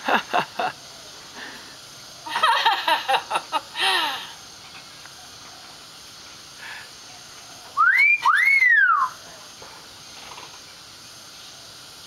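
Hill myna calling: harsh, chattering calls in the first four seconds, then a loud two-note whistle about eight seconds in, each note rising and then falling in pitch.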